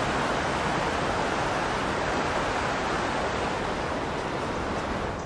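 Steady, even rushing noise with no distinct events, easing slightly near the end.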